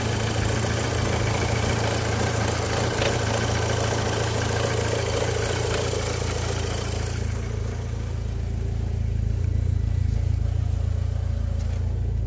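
MK5 Golf GTI's turbocharged 2.0-litre four-cylinder idling at operating temperature, with both radiator cooling fans running: a steady rushing of fan air over the low engine hum, the sign that the replaced main fan now works. About seven seconds in the fan rush fades, leaving the steady idle.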